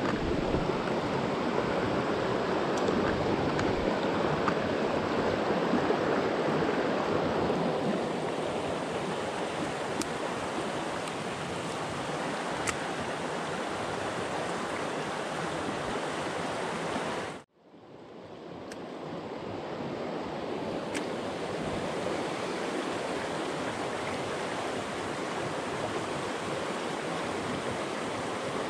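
Shallow mountain creek rushing and splashing over rocks, a steady water noise. A little past the middle it cuts out for a moment and fades back up.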